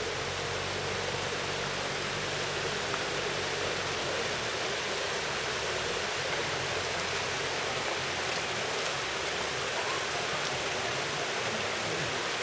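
Steady rush of flowing water in the Minoh River gorge, an even hiss with no breaks. A faint low hum sits under it for the first few seconds, then fades.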